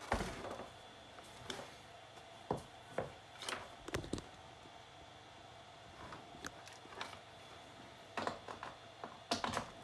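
Scattered knocks, clicks and thumps of handling as a small Samsung LCD TV is lifted, moved and set upright on a wooden workbench and its cables are handled, with the loudest knock at the start and a cluster of knocks near the end.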